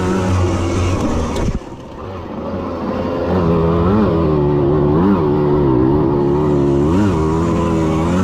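Small two-stroke moped engine heard from on board while racing. It drops off abruptly about a second and a half in as the throttle shuts, then picks up again and revs up and down several times.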